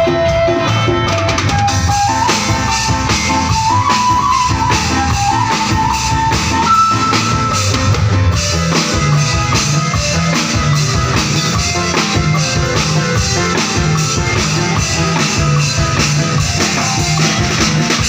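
Upbeat instrumental music with a steady drum-kit beat, percussion and a melody line.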